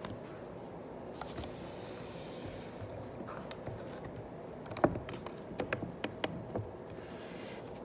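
Small desk noises while someone studies: a cluster of light, sharp taps and clicks about five seconds in, and two brief soft rustles, one early and one near the end, over a steady low room hum.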